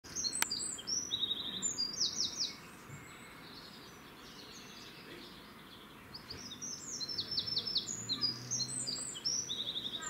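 Eurasian wren singing: two loud bursts of rapid high-pitched notes and trills. The first lasts about two and a half seconds from the start; the second begins about six and a half seconds in.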